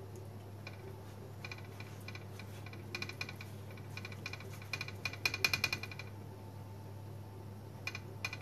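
Light tapping and clicking of a silicone pastry brush dabbing sauce onto pizza dough and knocking against a ceramic sauce bowl, with a quick run of taps about five seconds in, over a steady low hum.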